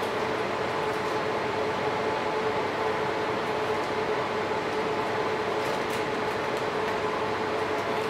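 Steady machine hum of running fans, with a constant mid-pitched tone held throughout. A few faint crinkles of a plastic membrane packet being handled come about six seconds in.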